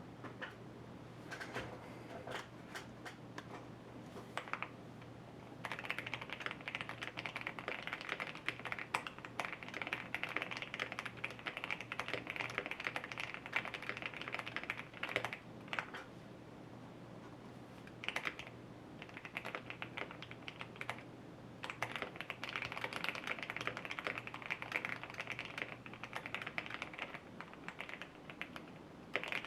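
Typing on a custom mechanical keyboard: a TKC Portico with lubed Alpaca v2 linear switches, screw-in stabilisers and doubleshot ABS keycaps, tape-and-PE-foam modded. A few scattered keystrokes at first, then fast continuous typing in runs broken by short pauses.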